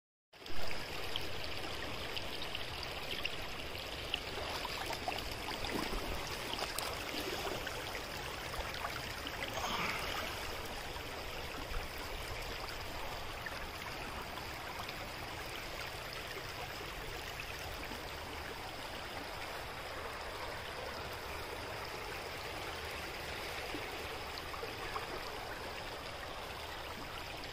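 Shallow river running over rocks through a shoal: a steady rush of water.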